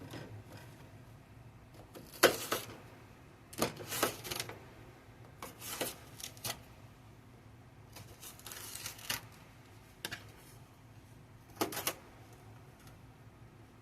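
Irregular knocks and clicks of celery being handled and cut on a kitchen counter, a few strokes at a time with pauses between, and a brief rustle partway through.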